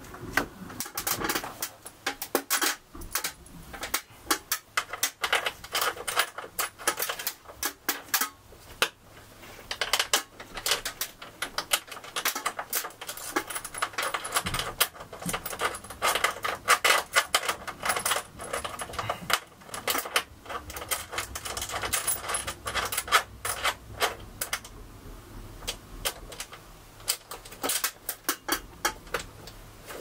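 Electrical wires being handled inside a metal breaker panel: a dense run of small clicks, taps and rattles, thinning out over the last few seconds.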